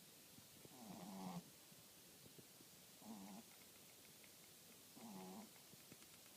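French bulldog snoring quietly in a slow, even rhythm: three short snores about two seconds apart.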